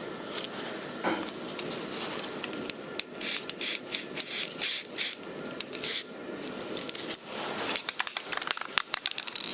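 Aerosol spray-paint can hissing in several short bursts, each well under a second, as camouflage paint is dusted onto a rifle. Near the end comes a quick run of sharp clicks.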